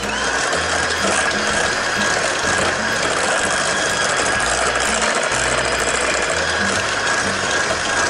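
Red KitchenAid electric hand mixer running steadily, its twin wire beaters whirring through creamed butter, sugar and egg batter in a stainless steel bowl, with a constant motor whine.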